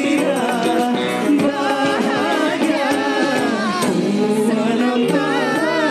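A pop song sung live by several singers into microphones, over band accompaniment.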